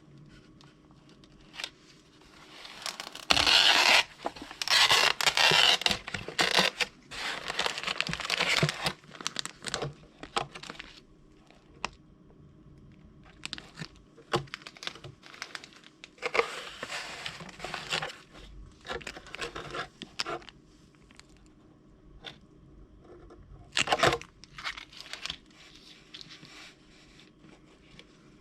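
Plastic packaging of a Peyoung instant yakisoba cup being torn and crinkled as it is opened. The loudest tearing and rustling comes in bursts about 3 to 9 seconds in, more follows in the middle and one sharp burst comes near the end, with small crackles between.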